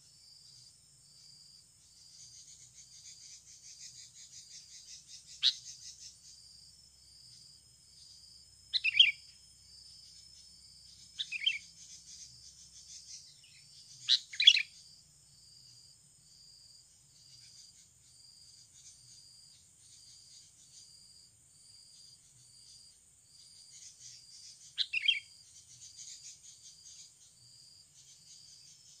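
Sooty-headed bulbul (kutilang) decoy calling: five short, loud, sharp calls at uneven intervals, some given as quick doubles. Under them runs a steady, faint, high insect buzz with an evenly repeating high pulse.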